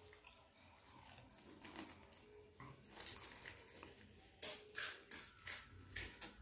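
Children eating crisp pani puris: chewing and crunching, with a run of about five short, loud crunches in the second half.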